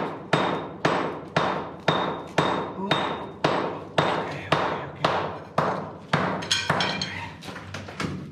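Hammer striking a steel chisel set into hard pegmatite rock, about two blows a second, each with a metallic ring, chipping the rock away to free crystals. Near the end the blows turn lighter and quicker.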